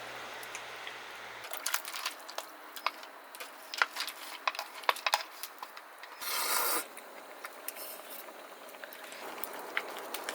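Small clicks and knocks of objects being handled, irregular and quick, with a short rustling burst about six seconds in.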